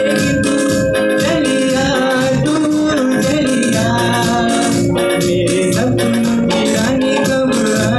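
Backing music for a Hindi film song played loud through a PA: a sustained organ-like melody over a steady shaker rhythm.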